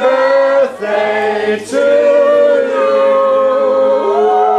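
A group of people singing together in unison, holding long drawn-out notes.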